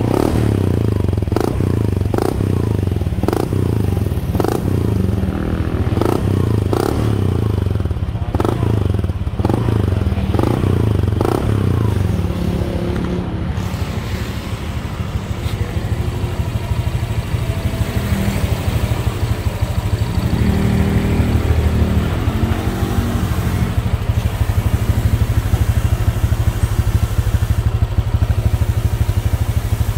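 Honda Click V2 scooter's stock single-cylinder four-stroke engine running through an aftermarket stainless 'powerpipe' exhaust, blipped in quick repeated revs for about the first twelve seconds, then settling to a steady idle.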